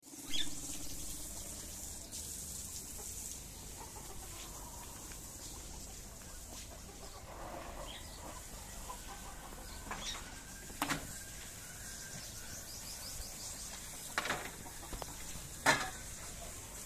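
A few short, sharp animal calls or squeaks over a steady background hum, the loudest near the end.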